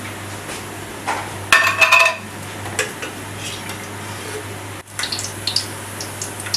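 Metal cookware clanking: a ringing clank about a second and a half in, then lighter clinks, over a steady low hum.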